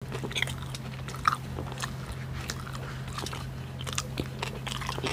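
A man biting and chewing a döner kebab close to the microphone: wet, crunchy mouth sounds with many short crackles, the sharpest crunch about a second in. A steady low hum runs underneath.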